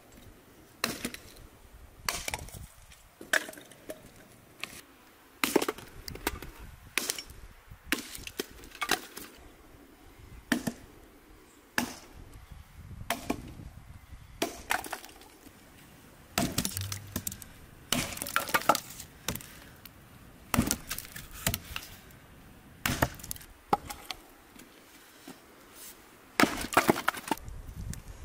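An axe chopping firewood on a wooden chopping block: repeated sharp strikes about one a second, some in quick doubles, with the crack and splinter of the wood splitting.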